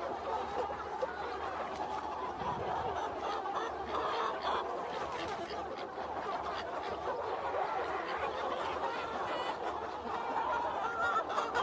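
A large flock of chickens clucking, many short calls overlapping into a steady chatter.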